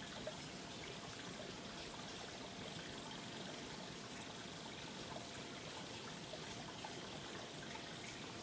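Faint, steady trickle of water, with small sharp ticks like drips every second or so.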